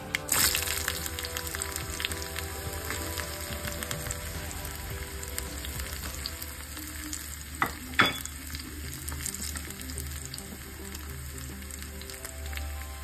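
Sliced shallots hitting hot oil with mustard seeds, setting off a sudden loud sizzle that settles into steady frying. Two sharp clicks about two-thirds of the way in.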